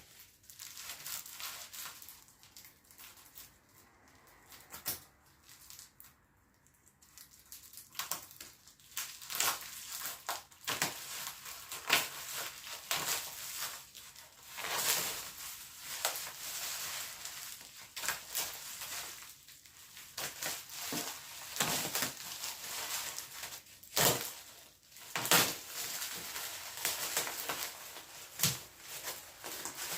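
Packaging being unwrapped by hand: irregular crinkling and rustling with sharp crackles, sparse at first and busier from about eight seconds in.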